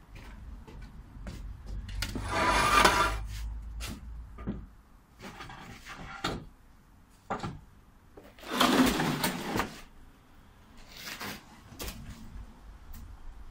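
A slatted wooden panel being handled and shifted: two scraping, rasping sounds about six seconds apart, with scattered knocks and clicks of wood between them.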